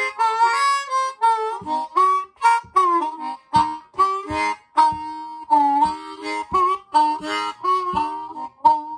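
Easttop ten-hole diatonic harmonica in A-flat played in cupped hands: a blues phrase of short, choppy notes and chords, some of them bent. Its sound is a little quiet, and a couple of its reeds sound to the player as if they could use retuning.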